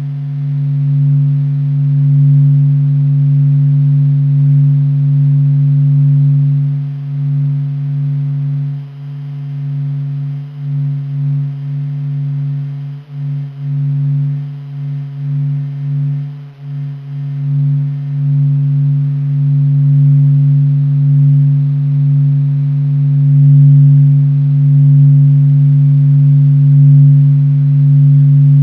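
NASA's sonification of the Sun's oscillations, a deep continuous drone. Its loudness slowly swells and dips, and it wavers more unsteadily in the middle stretch.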